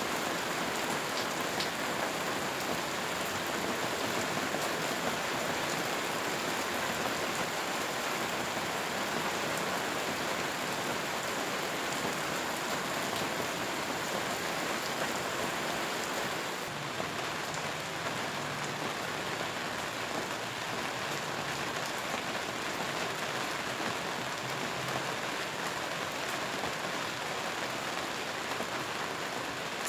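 Steady rain falling, an even dense patter. About seventeen seconds in the sound turns slightly softer and less bright, then carries on unchanged.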